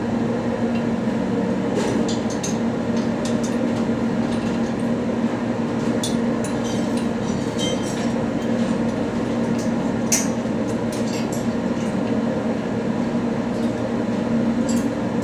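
Steady mechanical drone of running workshop machinery, with scattered light metallic clinks of tools and turbocharger parts being handled.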